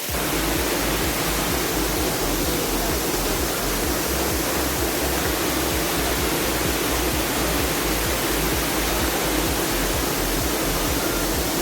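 Water pouring down a waterfall: a steady, even rushing with a deep rumble underneath.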